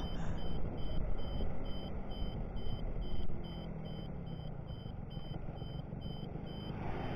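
Yamaha F1ZR's ported 110 cc two-stroke single-cylinder engine running on the move, with wind on the microphone; about three seconds in the level drops and the engine note then falls slowly as the moped slows. A short electronic beep repeats steadily about twice a second.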